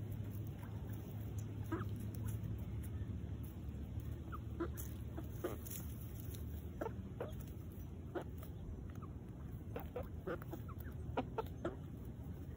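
Hens clucking in short, scattered calls while foraging, with the calls coming a little more often in the last few seconds.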